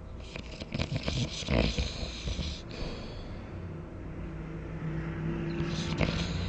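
A person snoring: a rough, crackly snort over the first two seconds or so, then a low buzzing snore that builds toward the end.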